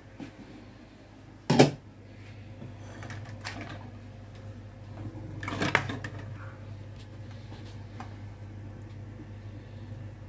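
Handling clatter of a saucepan and a phone camera being moved about, with a sharp knock about a second and a half in and another clattery knock around the middle, over a steady low hum.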